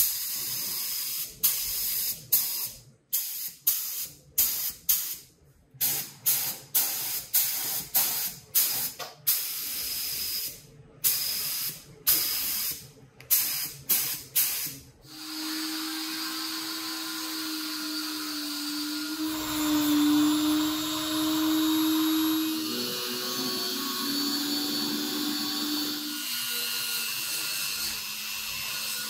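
Compressed-air spray gun spraying paint in a rapid series of short hissing bursts. From about halfway on, a small high-speed rotary tool runs with a steady hum whose pitch shifts a few times.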